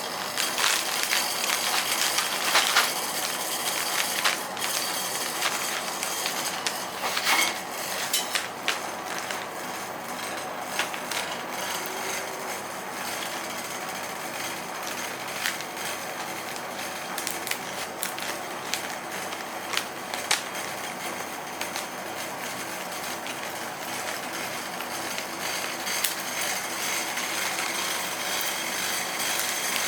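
Metal spatulas chopping and scraping on an ice-roll cold plate: scattered clicks and knocks over a steady scraping hiss, busier in the first several seconds.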